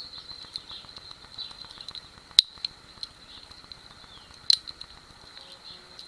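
Red Victorinox Swiss Army knife being handled, its tools clicking as they are opened and shut: two sharp snaps about two and a half and four and a half seconds in, with lighter clicks between. A steady high insect chorus and some bird chirps run underneath.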